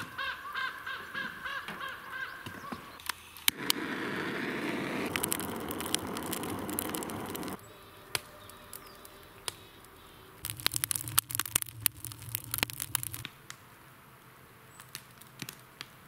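Wood fire burning in a homemade barrel tandoor. Its flames make a loud steady rush for about four seconds, and a run of sharp crackles follows later. A few short squeaky calls come first.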